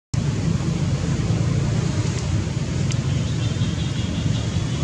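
A steady low rumble, with faint high-pitched tones in the second half.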